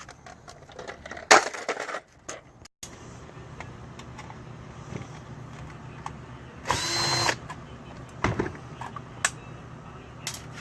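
A handheld power drill whirs briefly about seven seconds in, amid clatter and sharp knocks from the plastic housing of a coffee maker being taken apart.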